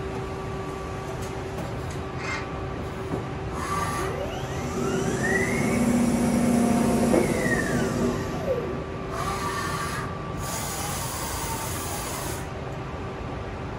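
2013 Johnford SL-500 CNC turning center running, with a steady machine hum. In the middle a motor whine climbs, holds for a couple of seconds, then falls back. Around it come stretches of rasping, sliding noise as the turret and carriage travel.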